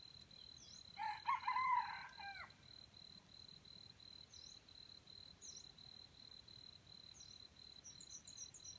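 Junglefowl rooster crowing once, a short crow starting about a second in. Under it an insect chirps in a steady pulse, and a small bird gives short chirps, several in quick succession near the end.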